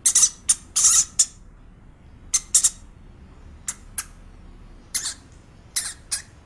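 A small animal giving about a dozen short, shrill, hissy squeaks in quick pairs and clusters.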